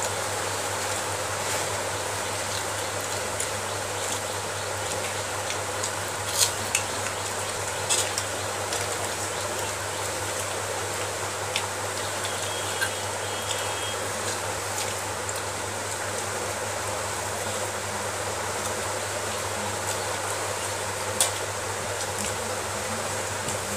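Steady hiss with a low hum underneath, and now and then a short click or smack of hand-eating from a metal plate as rice is mixed and lifted by the fingers.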